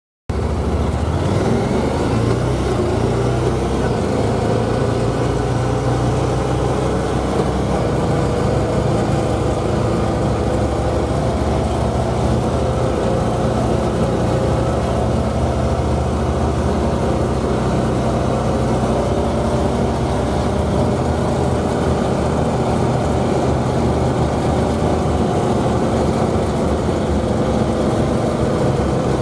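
Vehicle engine and road noise heard from inside the cab while driving uphill. The engine's pitch wavers gently, and the sound cuts in abruptly at the start.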